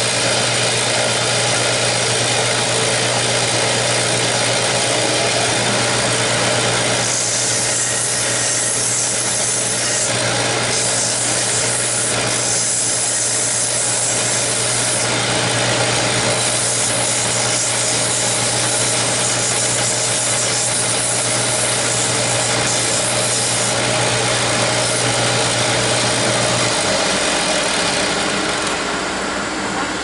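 Delta bench belt sander running, with a wooden comfort-bird blank pressed against the moving belt to round it off. The rasp of wood on the abrasive grows louder at times over the steady motor noise. A low motor hum drops out near the end while the rushing noise carries on.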